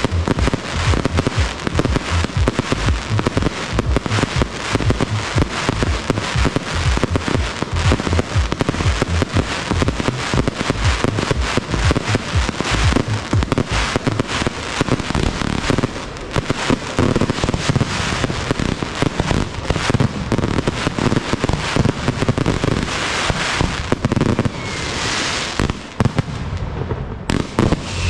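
Fireworks display: aerial shells and crackling effects going off in a dense, unbroken barrage of bangs and crackles, easing briefly about two seconds before the end.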